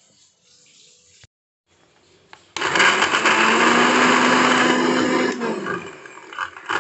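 Maspion blender's motor starting abruptly about two and a half seconds in and running steadily for about three seconds as it grinds chilies, garlic, shallots and tomato with a little water and oil into a spice paste, then its hum falling in pitch as it winds down.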